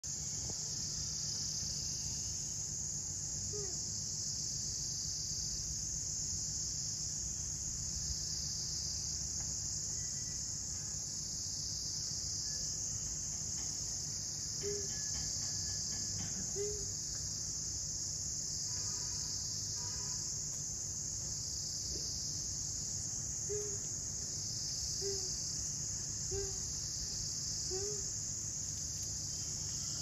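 A steady, high-pitched insect chorus that swells and eases slightly every second or two, over a low steady hum, with a few short, faint low chirps now and then.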